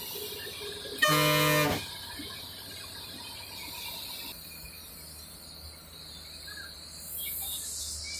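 A bus horn sounds one steady blast of under a second, about a second in, as the bus nears a sharp bend. Under it and after it, the steady running noise of the bus is heard from inside the cabin.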